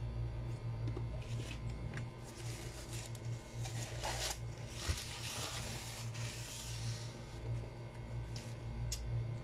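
Crinkly rustling of a tissue being handled and crumpled in both hands, swelling from about two seconds in and fading near seven seconds, with a few small clicks. A steady low hum runs underneath.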